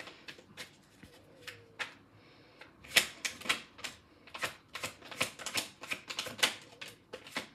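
A tarot deck being shuffled by hand, the cards tapping and clicking against each other in quick, irregular strokes. The clicks are sparse at first and come thick and fast from about three seconds in.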